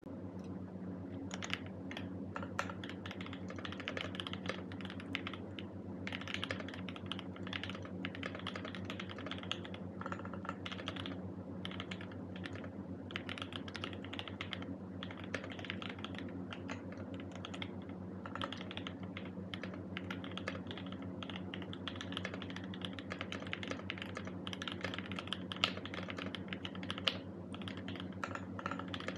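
Continuous typing on a mechanical keyboard with a brass plate, Boba U4T 68g tactile switches and PBT keycaps: a fast, uneven run of key clacks that starts about a second and a half in.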